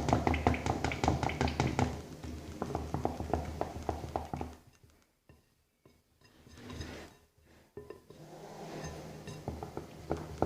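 Slime being mixed and squeezed by hand as it is activated, making quick sticky, squishy clicks. The clicks thin out and stop for about four seconds in the middle, then start again.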